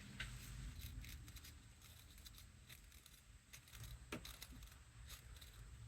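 Near silence, with a few faint ticks and a brief soft scrape about four seconds in.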